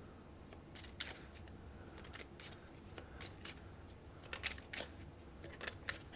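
A tarot deck being shuffled by hand: soft, irregular card flicks and taps.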